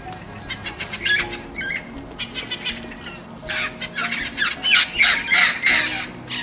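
A bird giving a series of harsh squawking calls, coming faster and louder from about halfway through, with soft background music underneath.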